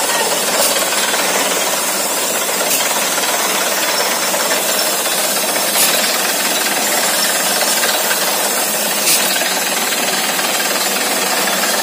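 Borewell drilling rig running: a loud, steady noise of the drill working, with a few brief sharp knocks.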